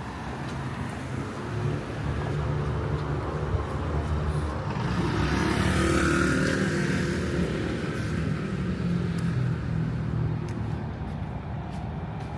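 A motor vehicle's engine running and passing close by on a city street, loudest about six seconds in, over steady traffic rumble.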